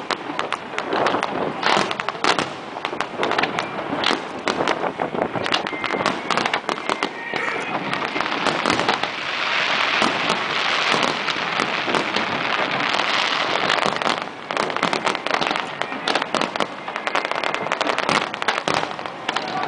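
Fireworks display: a rapid, uneven string of bangs and pops, thickening into a dense, continuous crackle from about eight seconds in to about fourteen seconds.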